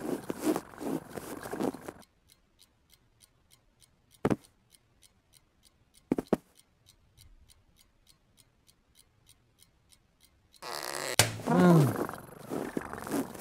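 Cartoon vocal sound effects for a cat and a sleeping man, with a pause in between filled by a quiet, steady ticking about three times a second and two soft thumps. The gliding voiced sounds return about eleven seconds in.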